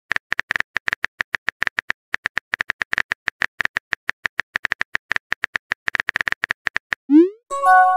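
Texting-app keyboard click sound effects tapping rapidly, several a second, as a message is typed out. About seven seconds in the clicks stop, and a quick rising pop and a short chime follow as the message is sent.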